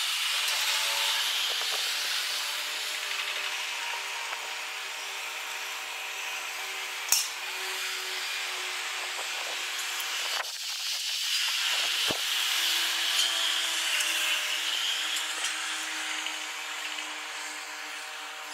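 Distant jet airliner's turbofan engines, sped up four times: a high hissing whine with steady tones underneath. A sharp click about seven seconds in.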